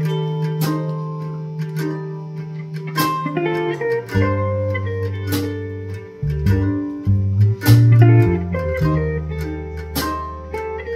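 A live band playing an instrumental passage: electric guitar picking melodic notes over held electric bass notes, with a few sharp percussive hits.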